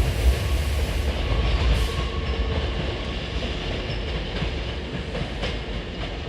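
Hankyu 1000 series electric train departing, its low rumble fading steadily as it pulls away, with a few clacks from the wheels passing over rail joints.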